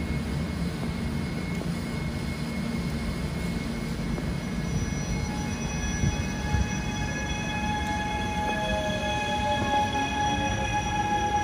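TreNord electric commuter train running past along the platform: a steady rumble of wheels on the rails. About halfway through, several high steady tones join in, with a rising whine near the end.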